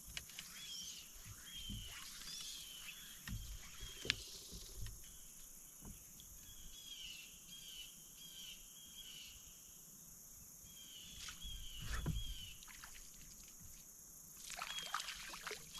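Kayak paddle dipping and splashing now and then, strongest about four seconds in, near twelve seconds, and near the end. Behind it a bird sings runs of short, quick, repeated chirps, over a steady high insect hum.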